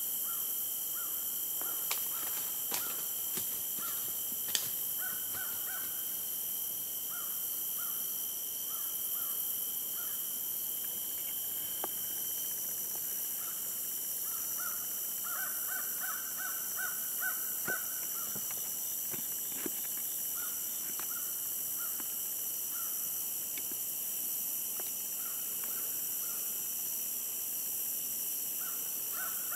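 Crows cawing in repeated series over a steady high-pitched drone of insects in the woods. There are a few sharp clicks in the first few seconds.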